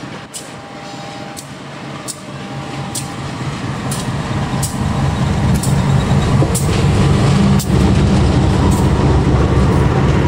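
Diesel-electric locomotive hauling a passenger train approaches and passes. Its engine rumble grows louder through the first half and stays loud. Sharp clicks from the wheels on the rails come about once a second.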